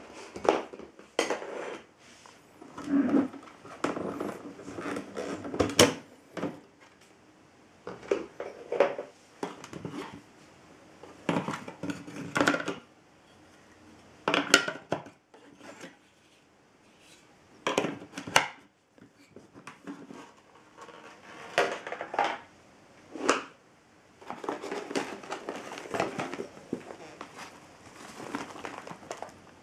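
Hard parts of a vacuum cleaner being handled with the motor off: irregular knocking and clattering, a dozen or so separate bursts with rustling in between.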